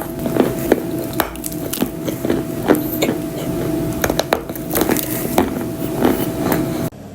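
Edible clay being bitten and chewed: irregular crisp cracks and crunches with a gritty grinding between them, over a faint steady hum. The sound drops out briefly near the end.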